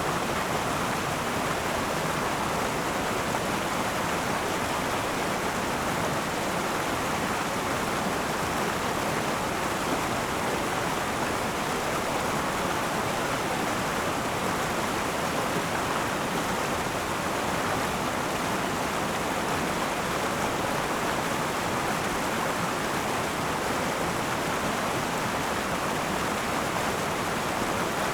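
Akan River flowing: a steady, even rush of running water over its bed.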